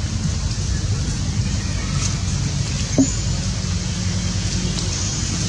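Steady low rumble of background noise, with one short rising squeak about three seconds in.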